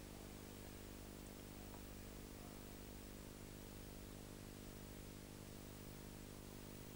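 Faint, steady hiss with a low electrical hum underneath: the recording's own background noise, with no other sound.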